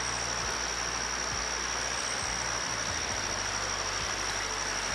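Shallow river rapids rushing steadily over rocks, with a steady high-pitched drone over the water noise.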